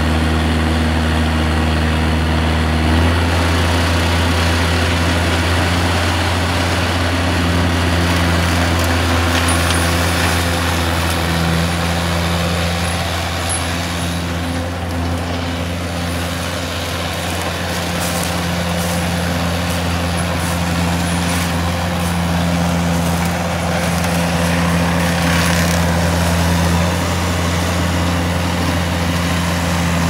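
Rayco tracked forestry mulcher's diesel engine running steadily and loudly under load as the machine clears a path through brush. The engine note shifts slightly about three seconds in.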